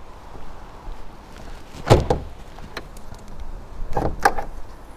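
Clicks and a dull knock from a Mk4 VW Golf's bonnet being released and lifted: one dull knock about two seconds in, then a few sharp clicks near the end.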